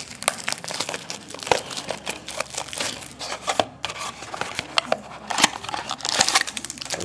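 Foil card wrappers and a cardboard card box crinkling and tearing as they are handled and ripped open by hand: a dense, irregular run of crackles and rustles.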